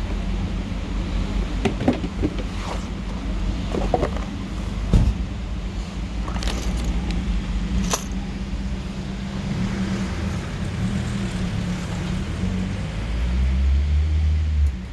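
A vehicle engine running steadily at idle, a low even hum, with a few sharp clicks and rustles from a cardboard game box and plastic bags being handled.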